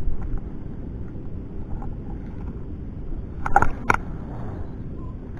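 Low, steady rumble of wind on the microphone, with a short cluster of sharp clicks about three and a half seconds in as the spinning rod and reel are handled.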